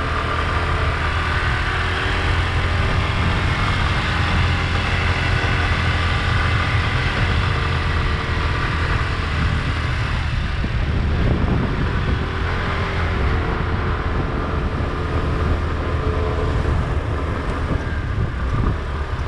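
Motor scooter engine running while riding, its note easing off about halfway through and then picking up again, over a steady low rumble of wind on the microphone.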